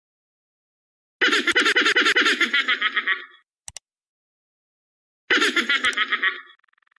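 Laughter sound effect: quick, even giggling pulses for about two seconds, then after a pause a second, shorter burst. A faint steady tone starts just after the second burst.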